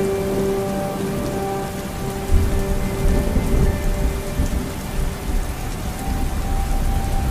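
Rain hissing on a car windshield while driving. A low rumble comes in about two seconds in. Sustained music notes sound underneath.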